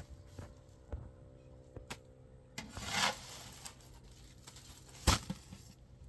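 Household handling sounds: a few scattered clicks and knocks, a short rubbing rustle about 3 s in, and a sharper knock about 5 s in, over a steady low hum.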